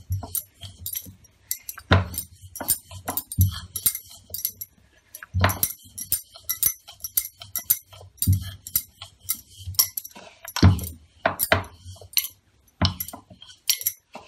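Wooden rolling pin rolling out chapati dough on a marble rolling board: irregular knocks every second or two, with lighter clicks and clinks in between.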